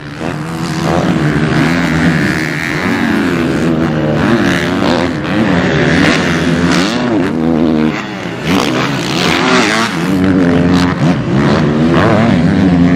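Kawasaki KX250F four-stroke single-cylinder motocross bike engine revving hard, its pitch rising and falling again and again as the throttle is opened and shut over jumps.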